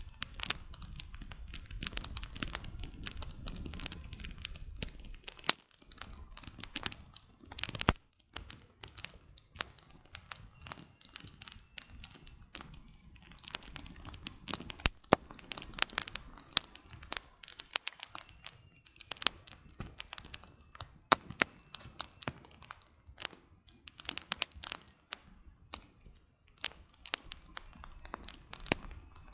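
Wood campfire crackling: firewood popping and snapping in a dense, irregular stream of sharp cracks, with a low rumble underneath for about the first five seconds.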